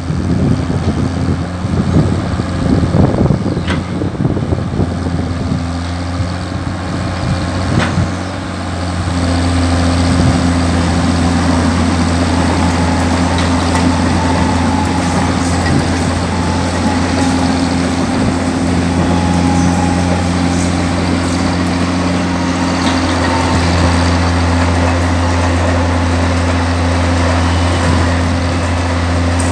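Tata Hitachi EX110 long-reach excavator's diesel engine running steadily under work. It is rougher and more uneven for the first several seconds, then evens out and gets a little louder from about nine seconds in.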